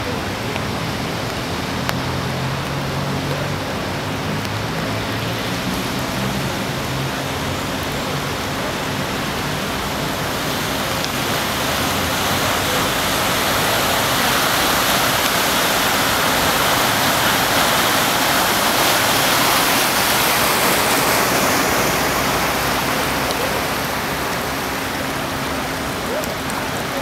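Steady rushing of rain and floodwater. It swells for several seconds in the middle as a small Renault hatchback pushes a bow wave through the flooded street, then eases back.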